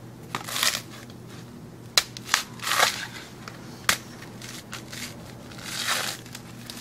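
A coconut being husked on an upright stake: the fibrous husk cracks and tears in several crunching bursts, with two sharp knocks in between.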